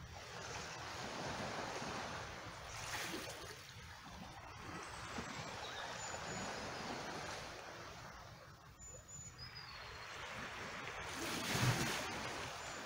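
Water on a rocky cobble shore: small waves washing in and a rock pool sloshing and trickling, the sound swelling and easing, with its biggest surge near the end.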